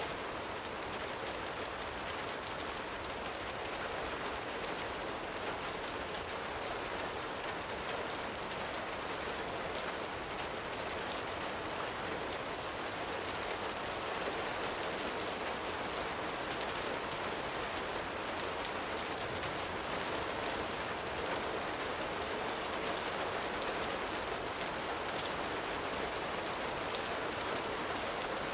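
Steady gentle rain falling, with many faint scattered ticks.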